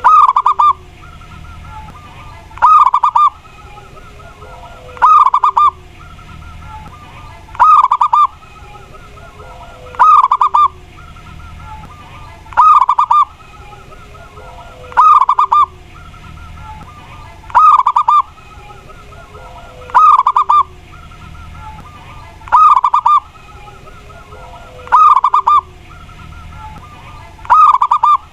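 Zebra dove (perkutut) singing its cooing song over and over: a short loud phrase of rolling coos repeated about every two and a half seconds, with a softer low falling note between phrases.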